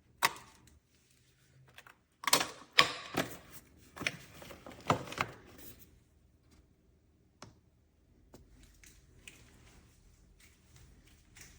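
A quick run of clicks and light knocks, like hard objects being handled and set down, thickest in the first half and thinning to a few faint ticks.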